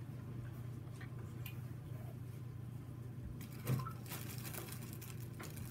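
Low, steady room hum. About three and a half seconds in, a single thump, then a couple of seconds of faint crinkly rustling.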